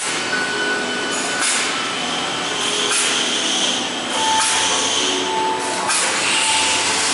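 Plastic bag-making machinery running in a factory, a steady mechanical noise with a hissing stroke that repeats about every one and a half seconds as the machine cycles.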